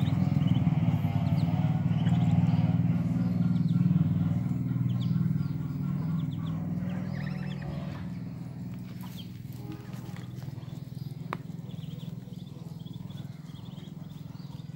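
Muscovy ducklings peeping faintly, under a loud low hum that fades away over the first half.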